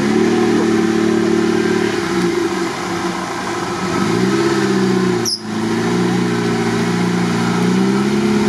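Off-road vehicle's engine revved hard and held at high revs under load in mud. It eases off about two seconds in, revs up again about four seconds in and holds, with a brief break partway through.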